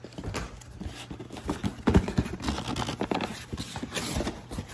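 Cardboard shipping box being pulled open by hand: irregular scraping and rustling of the cardboard flaps with scattered knocks, the loudest about two seconds in.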